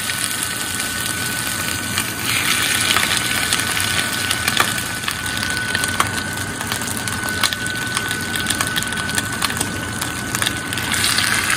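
Meat frying in hot lard in a clay cazuela: a steady sizzle with many small crackles and pops.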